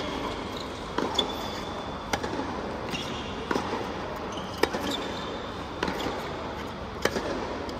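Tennis rally on a hard court: sharp pops of racquet strikes and ball bounces, about one a second, with short squeaks of tennis shoes between shots.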